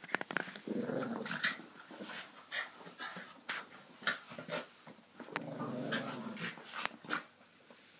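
Two small terriers play-fighting, with low growls about a second in and again near six seconds, among quick snaps and clicks.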